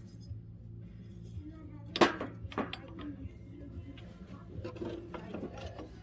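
Tableware clinking and knocking as pieces are handled: a sharp clink about two seconds in, then several lighter ones, over background music.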